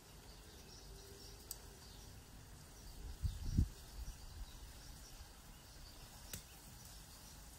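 Quiet outdoor background noise, with a few soft low thumps about three seconds in and a couple of faint clicks.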